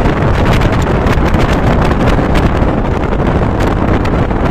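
Loud wind buffeting the microphone over the steady rumble of a passenger train running along the track, with irregular clicks and rattles throughout.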